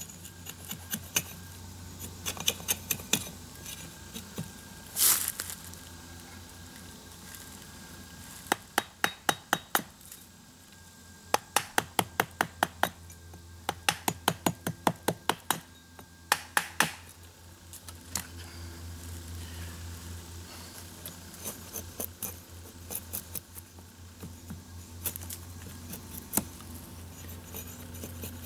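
Sharp knocks of a handleless axe head being driven into a wooden stave to split and shape it. The knocks come in quick runs of several strikes, about five a second, with pauses and scattered single knocks between.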